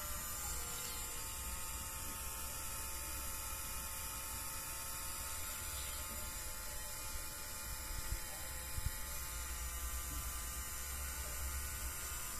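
Small Tamiya-type DC motor of a homemade mini fogging machine running steadily with a thin, even whir, with a couple of soft low bumps about eight seconds in.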